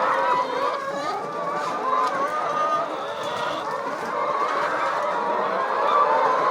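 A flock of chickens clucking and calling, many birds at once in a continuous, overlapping chorus.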